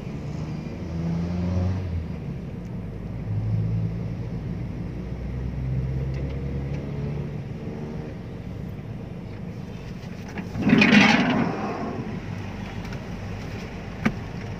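Engine of a parked van running at idle, heard from inside the cabin as a steady low hum whose pitch shifts slightly. A brief louder noise about eleven seconds in and a sharp click near the end.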